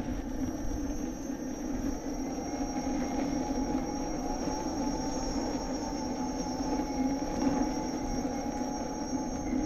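Electric unicycle's hub motor whining steadily under load while climbing a steep concrete lane, with wind rumble on the microphone.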